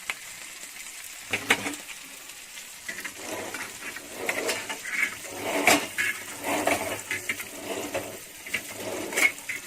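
Metal utensil scraping and knocking in a pan of frying fish: sparse at first, then a run of short scraping strokes from about three seconds in, with a few sharp clinks.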